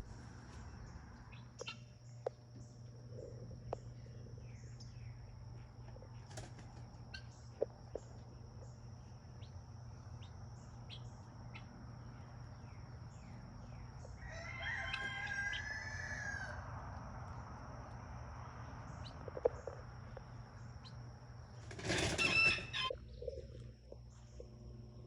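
Farmyard poultry: one drawn-out, crow-like call of about two seconds a little past halfway, and a loud harsh burst near the end, with scattered small clicks. A steady low hum and a steady high-pitched drone run underneath.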